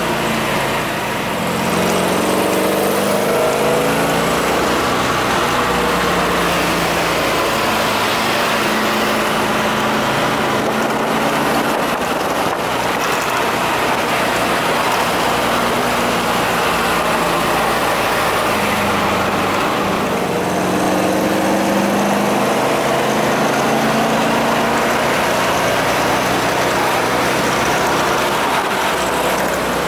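1969 Corvette's V8 engine pulling the car along the road, heard from inside the cabin. Its pitch climbs and falls with acceleration and easing off, over a steady rush of wind and tyre noise.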